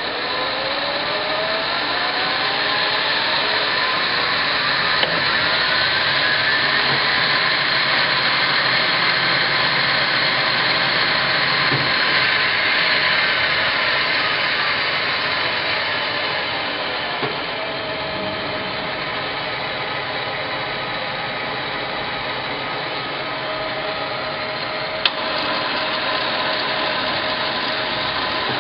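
Hardinge HLVH toolroom lathe running under power, its spindle and drive whining. The whine climbs in pitch over the first several seconds as the speed is turned up, holds, then falls again about halfway through and settles at a lower steady speed, with a few light clicks along the way.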